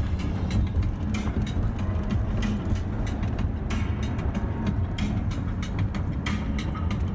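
Road noise inside a moving car's cabin: a steady low rumble from tyres and engine at highway speed, with irregular small clicks and rattles.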